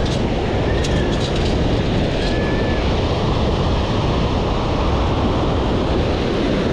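Wind buffeting the microphone over shallow surf washing up on the beach, a steady rushing noise. A few faint clicks and two short faint beeps come through about one and two and a half seconds in.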